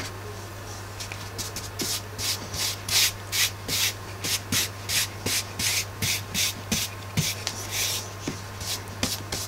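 Stiff paintbrush scrubbing grey acrylic paint over a black-painted foam board, rapid back-and-forth strokes at about three a second, each a short scratchy rasp of bristles on the textured surface. A steady low electrical hum lies underneath.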